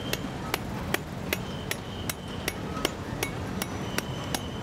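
A knife chopping at the shell of a trimmed young coconut to open its top: a steady run of sharp knocks, about four a second, each with a short ringing note.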